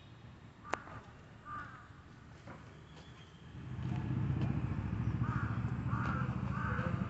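A bird calls in short, harsh notes repeated about twice a second. Under it, a loud low rumble sets in about four seconds in, and a single sharp click comes about a second in.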